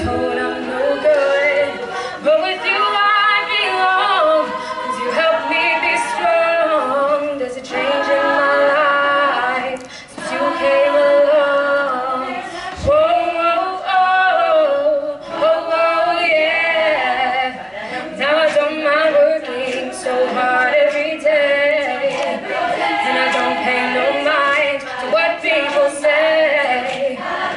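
All-female a cappella group singing: a lead vocalist on a microphone over the group's backing vocals, with no instruments.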